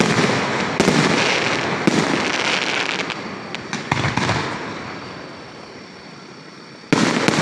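Aerial fireworks display: shells bursting with loud bangs and crackling, the rumble dying away in the middle, then two sharp bangs close together near the end.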